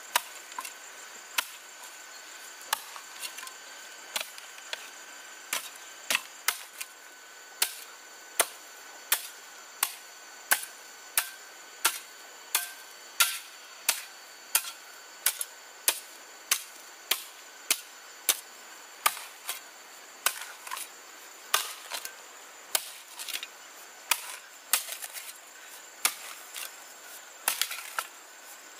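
Steady chopping strokes with a blade, sharp knocks about three every two seconds, quicker and more uneven near the end. Insects trill steadily behind.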